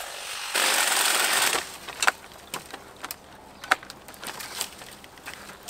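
Dry branches and brush being cut and handled: a rustling crash lasting about a second, then scattered sharp snaps and clicks.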